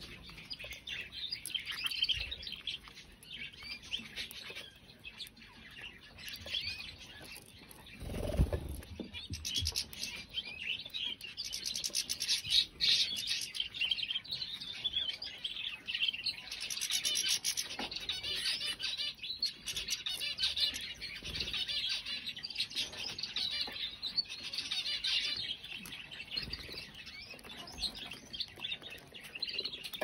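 Several domestic canaries singing and chirping together, a continuous high twittering and warbling that rises and falls in strength. A brief low thump sounds about eight seconds in.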